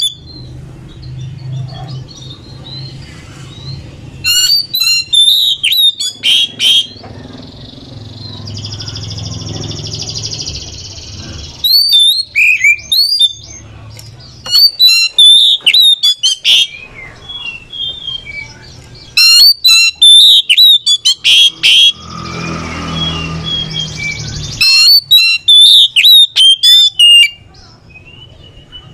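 Oriental magpie-robin singing in loud bursts of rapid, high, sliding whistled phrases, about five bursts with pauses between them. Twice between the bursts there is a longer buzzy rasping passage.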